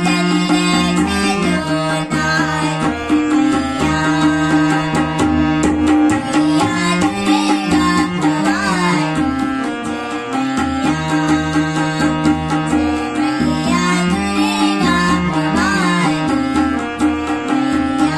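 Harmonium holding sustained chords under a tabla rhythm, with two girls' voices singing a devotional bhajan melody over them.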